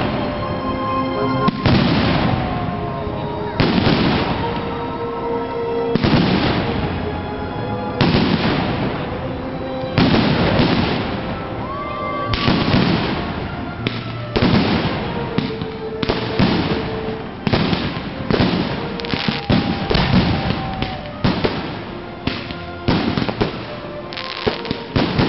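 Aerial firework shells bursting overhead in a steady series of loud bangs. They come about every two seconds at first and speed up to one or two a second in the second half.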